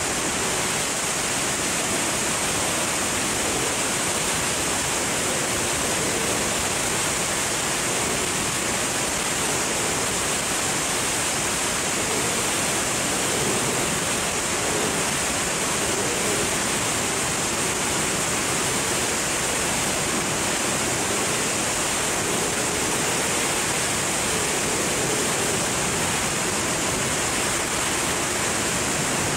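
Wind rushing over a skydiver's helmet-mounted camera microphone in freefall: a steady, unbroken noise with a strong high hiss.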